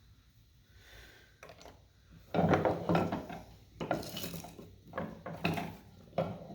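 A hand tool worked against the workpiece in about five irregular scraping strokes, starting a little over two seconds in.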